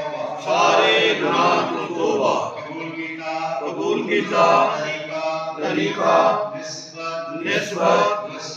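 Men's voices chanting a devotional litany together in long, held melodic phrases.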